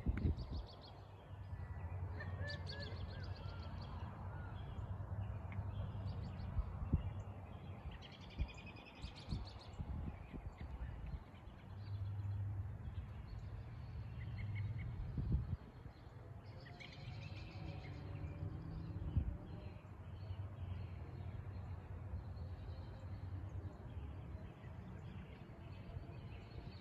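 Birds chirping and singing in short bursts, three or four times, over a low steady rumble, with a few sharp thumps.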